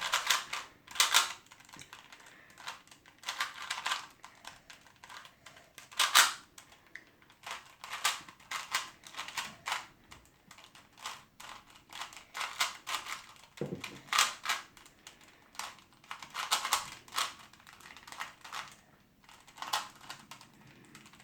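Rubik's cube being turned fast in a speed-solve: its plastic layers click and clack in quick irregular flurries with short pauses between.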